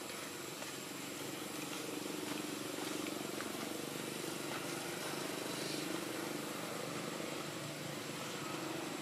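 Steady outdoor background hum, like a distant engine, with a thin high whine above it. No distinct event stands out.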